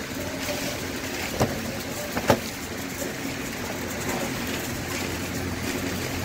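Steady low mechanical hum, like a running engine, with two sharp knocks about a second and a half and two seconds in.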